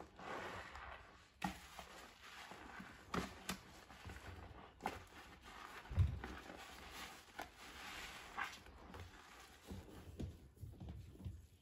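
Soapy sponge being squeezed and kneaded in foamy water: uneven wet squelching with crackling suds, a few sharp clicks and a soft thump about halfway through.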